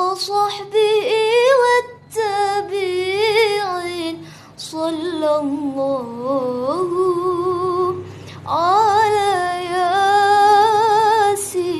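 A woman singing sholawat, an Islamic devotional song in praise of the Prophet, in one voice with heavy vibrato and ornamented runs, in several phrases with short breaths between them.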